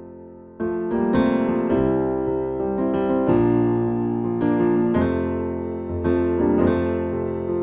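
Background piano music: chords struck every half second or so, each dying away before the next, after a pause of half a second at the start.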